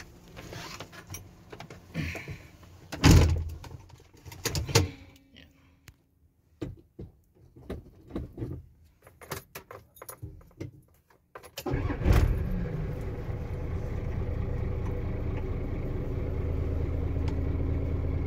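Clicks and knocks of handling in the truck cab, then about twelve seconds in the Isuzu FRR's 6HH1 six-cylinder diesel engine starts suddenly, its revs dropping back as it settles into a steady idle.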